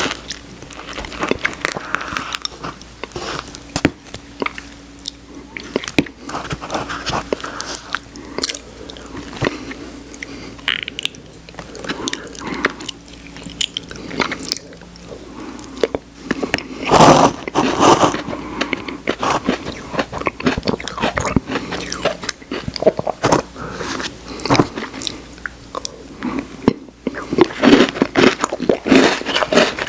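Close-miked eating of Oreo ice cream: steady chewing and crunching of the cookie pieces, full of short wet clicks, growing louder for a moment about halfway through and again near the end.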